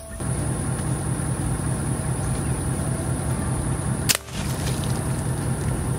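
A single sharp crack about four seconds in, the shot of a suppressed .25-calibre air rifle, over a steady low rumbling noise that runs throughout.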